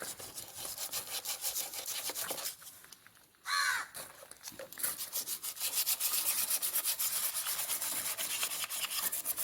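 Sandpaper rubbing rust off the steel frame of a Bajaj CT100 motorcycle by hand in quick back-and-forth strokes. The strokes pause briefly before the middle, then come faster and louder about five seconds in.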